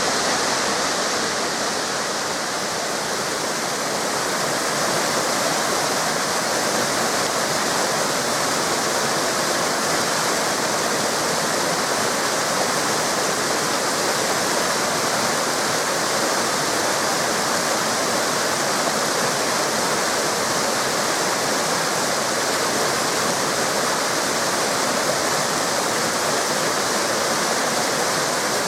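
Small river cascades falling and rushing, a steady, unbroken wash of water noise.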